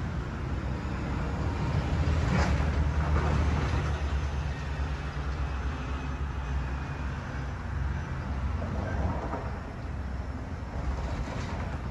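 Low, steady rumble of a train at a railway station, swelling a little about two seconds in, with a couple of brief sharper noises over it.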